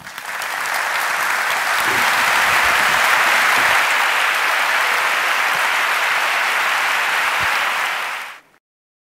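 Large audience applauding, building within the first half second and holding steady, then cut off abruptly about eight seconds in.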